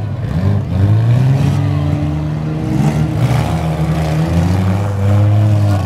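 Six-cylinder demolition derby car engines running and revving as the cars manoeuvre, the engine pitch rising and falling.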